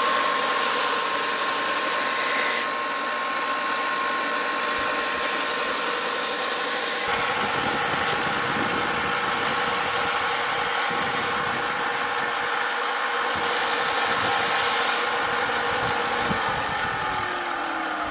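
Benchtop combination belt and disc sander running while a wooden decoy blank is ground against the belt: a steady motor hum under rough abrasive sanding noise. Near the end the hum drops in pitch.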